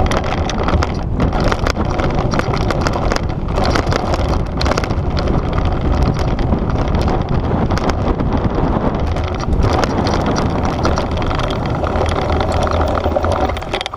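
Downhill mountain bike descending a loose dirt and rock trail: tyres crunching over gravel and the bike's chain and suspension rattling and knocking, under heavy wind rumble on the camera's microphone from the bike's speed.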